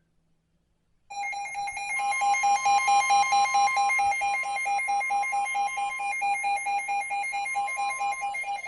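Weather radio alert alarm: a loud, rapid pulsing electronic beep starts about a second in, and a steady, slightly higher alert tone joins it a second later.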